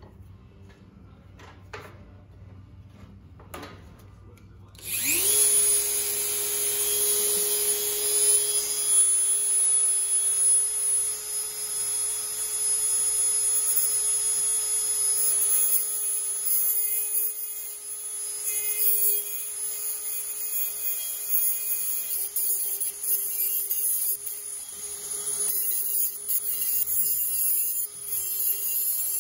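A couple of light clicks, then a high-speed rotary tool with a small abrasive cutoff wheel spins up about five seconds in to a steady high whine with a harsh grinding hiss as the wheel cuts into the end of a W1 steel rod. The whine wavers a little in pitch in the second half as the wheel bears on the steel.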